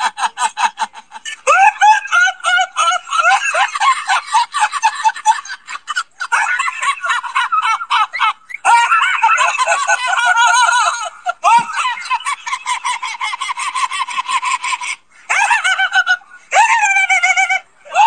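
A man laughing uncontrollably: long runs of rapid, high-pitched, cackling laughter, broken by a few short pauses for breath.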